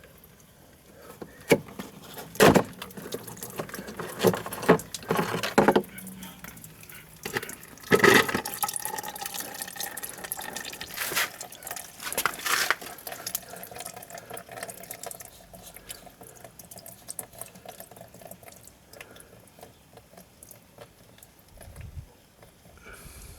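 Washer fluid trickling and dripping out of the washer reservoir as the washer pump is pulled from its rubber grommet. Sharp plastic clicks and knocks of handling come through the first half.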